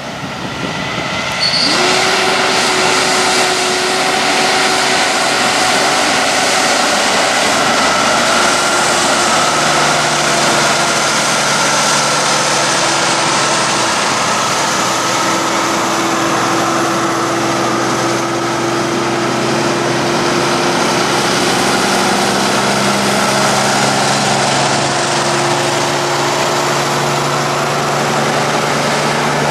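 Heavy-haulage trucks with an oversize mining-truck load drive past close by: the diesel engines of Kenworth prime movers and a Mack Titan block truck make a loud, steady drone. One engine note rises about two seconds in.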